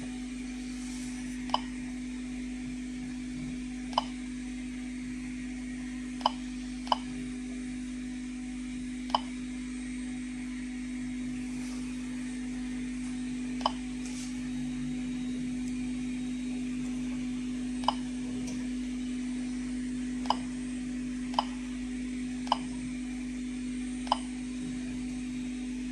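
Geiger-counter dosimeter registering counts: about eleven short, sharp click-beeps at random, uneven intervals, a sparse count rate.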